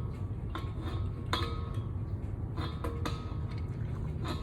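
Metal tools clinking: a wrench knocking against metal gas fittings in a few short, ringing clinks, roughly one a second, over a steady low rumble.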